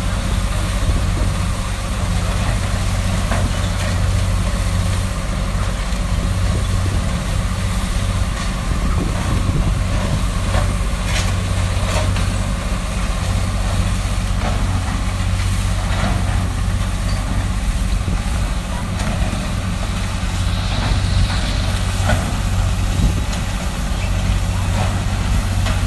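Heavy diesel demolition machinery running steadily, with scattered knocks and clanks.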